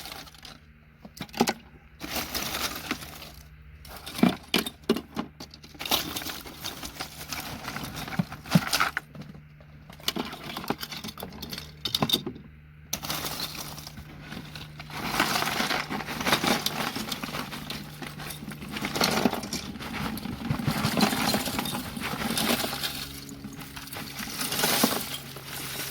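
Loose gold-plated connector pins and small electronic scrap tipped from a bucket into a tub, clattering and jingling in repeated bursts with short pauses between them.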